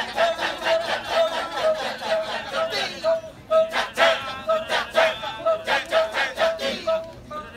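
Balinese Kecak chorus of men chanting. The massed, interlocking 'cak' syllables go over a single voiced note repeated evenly about three times a second.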